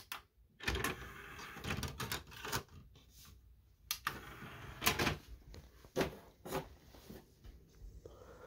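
Plastic clicks and clatter of a DVD being handled and set into a Sony DVD player's open disc tray, and the tray being shut, with sharp clicks every second or so.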